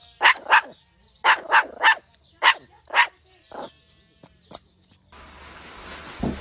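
Chihuahua yapping in quick, short, high barks, about nine in groups of two or three, stopping a little after three and a half seconds in. A steady hiss takes over about five seconds in.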